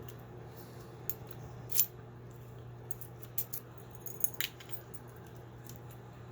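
Scattered light metallic clicks and ticks from a double-cylinder deadbolt and its parts being handled and turned over, over a steady low hum.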